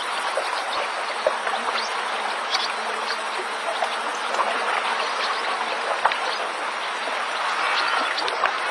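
Flowing water, like a babbling stream, with many small splashes and ticks through the steady rush.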